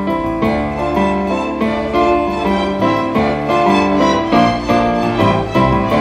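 A youth orchestra playing a lively instrumental passage: flutes, clarinets and violins over a steady pulse of struck, piano-like notes.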